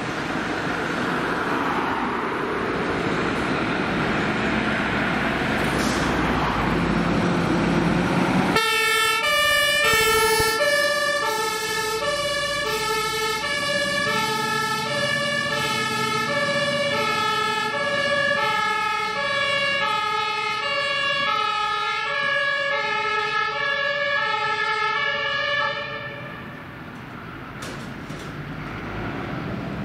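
A Scania fire engine's diesel engine pulls away under power. About a third of the way in, its German two-tone siren (Martinshorn) starts, steadily alternating between a high and a low tone. The siren cuts off suddenly near the end, leaving the engine running.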